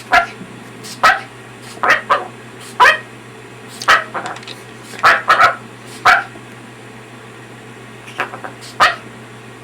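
Patagonian conure giving short, harsh, cough-like calls, roughly one a second, pausing for a couple of seconds before two more near the end: the parrot's imitation of coughing.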